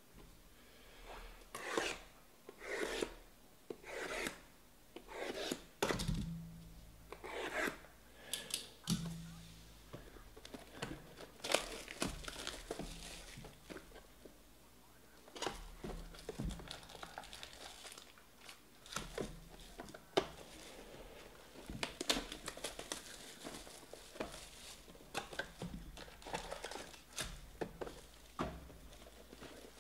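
Plastic shrink-wrap being torn off a sealed box of trading cards and crumpled. A string of short rips about a second apart comes first, then scattered crinkling as the wrapped card packs are handled.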